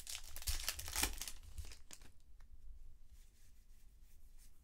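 Foil trading-card pack wrapper crinkling and cards rustling and sliding against each other as they are handled, busiest in the first two seconds and then fainter, scattered rustles.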